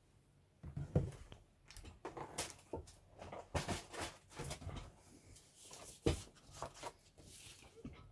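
Cardboard model-kit box and its paper instruction sheet being handled: irregular knocks, taps and rustling, with a sharp knock about a second in and another about six seconds in.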